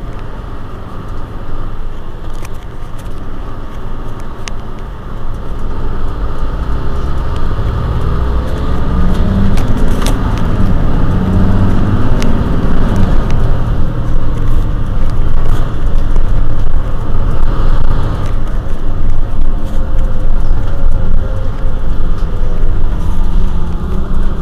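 Mercedes-Benz Citaro C2 bus's OM936 straight-six diesel engine running at a standstill, heard close behind the rear engine bay. The low rumble grows louder about six seconds in and stays loud, swelling and easing back around the middle.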